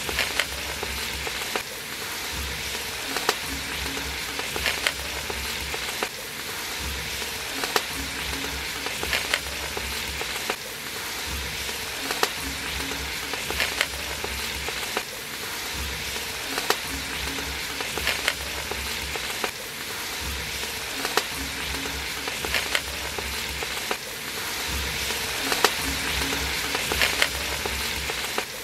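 Masala and vegetables sizzling as they fry in a large aluminium pot, with a metal ladle stirring and clinking against the pot's sides every second or two. A faint low pulse repeats underneath about every second and a half.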